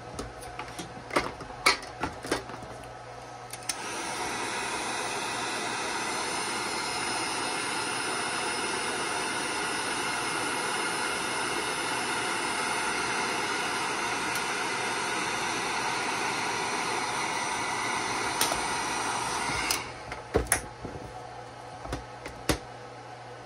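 A Wagner heat gun switches on about four seconds in, blows with a steady hiss for about sixteen seconds, then cuts off. Sharp clicks and knocks from handling the tool and the battery cables come before and after it.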